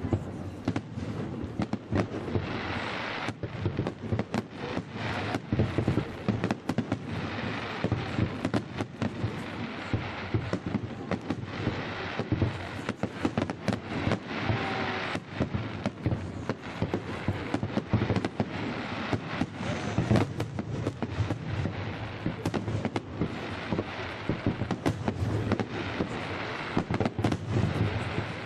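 Fireworks display: a dense, unbroken run of sharp bangs and crackling bursts.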